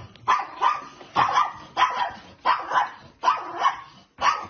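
A small dog barking over and over, about two barks a second, often in quick pairs.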